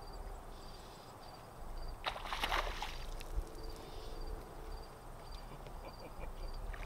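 A hooked small largemouth bass splashing at the pond's surface while being played on a fly rod: one noisy splash about two seconds in, another right at the end.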